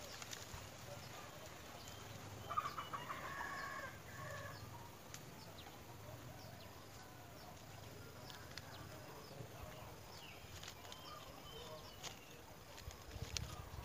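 Faint outdoor background with a short run of pulsed bird calls about three seconds in, and thin high chirps scattered throughout. A brief low rumble comes near the end.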